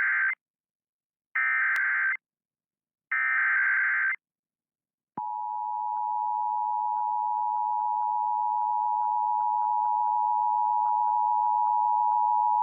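Emergency Alert System header data tones: the end of one short burst of screeching digital data, then two more bursts about a second long, followed from about five seconds in by a steady, loud alert tone that announces a severe thunderstorm warning.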